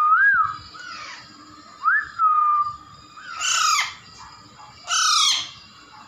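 Young Alexandrine parakeet calling: two short whistled calls, the second rising and then held, followed by two loud, harsh squawks about a second and a half apart.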